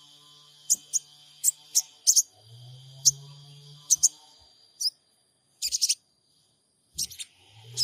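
Sogon bird calling with short, sharp, high chirps at uneven intervals, with a quick run of chirps in the middle and another near the end. A low steady hum sounds under it for about two seconds.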